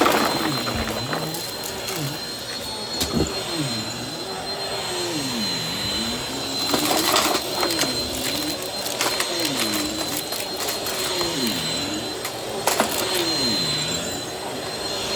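Vacuum cleaner running with a steady high whine, its motor hum dipping and rising in pitch over and over, every second or two, with a few sharp clicks and bumps along the way.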